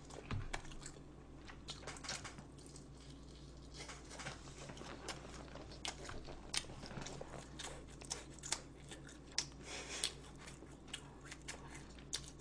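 A person chewing food close to the microphone, with scattered short sharp clicks.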